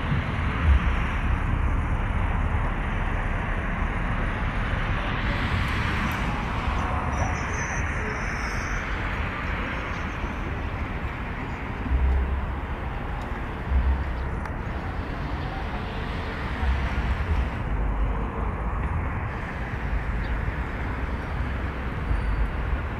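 Eurocopter EC135 helicopter engines running during start-up: a steady rush of turbine noise with a faint high whine. Low gusts of wind buffet the microphone now and then.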